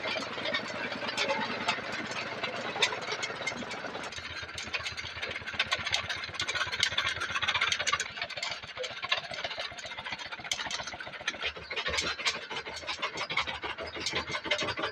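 Home-built Stirling hot-air engine with diaphragm pistons running a miniature ride-on locomotive, a fast, uneven clatter of knocks as it hauls loaded wagons on a load test.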